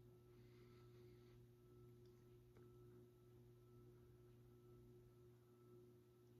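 NuTone Verandah Deluxe ceiling fan running on its variable speed control, its motor giving a faint, steady hum: the variable speed buzz typical of this fan when it is not on straight high speed.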